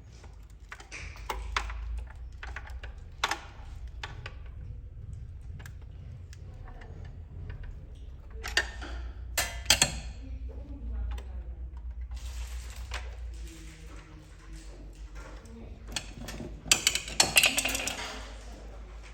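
Scattered clinks, taps and knocks of hand work on hardware, with a few short scraping stretches and a busier burst of clatter near the end, the loudest part, over a steady low hum.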